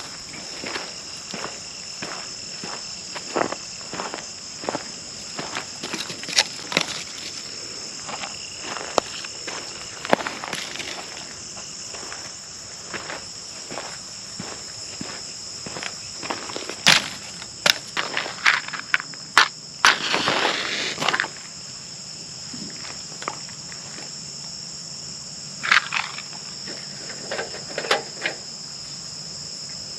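Steady high-pitched chirring of crickets or other insects, with irregular sharp taps and knocks scattered through it and a brief rustling burst about two-thirds of the way in.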